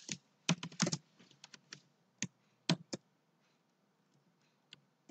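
Computer keyboard typing: a quick run of keystrokes in the first second, then single keystrokes spaced out, a few per second and fewer toward the end.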